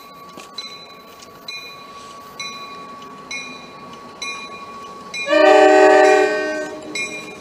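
An approaching MBTA commuter rail diesel locomotive with its bell ringing about once a second, then one long blast of its air horn, lasting about a second and a half and starting about five seconds in.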